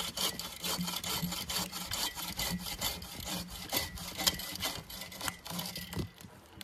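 Bow saw cutting through a dead log, steady back-and-forth strokes of the blade rasping through wood, about three strokes every two seconds. A louder click comes about four seconds in.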